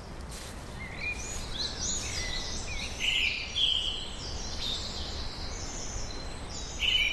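Several forest birds singing and chirping at once, short overlapping calls starting about a second in, over a low steady rumble.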